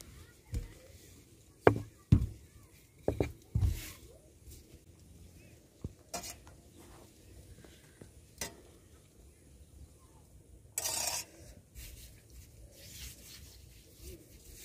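A wooden rolling pin knocks and rolls on a plastic table as dough is rolled out, with several sharp knocks in the first four seconds. After that come a few scattered clicks and soft rubbing as oil is spread over the dough by hand, and a brief hiss about eleven seconds in.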